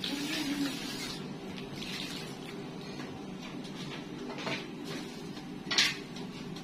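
Tap water running into a bowl at the kitchen sink for the first second or so, then stopping, over a steady low hum. A few light clatters follow, and one sharp knock about six seconds in, the loudest sound.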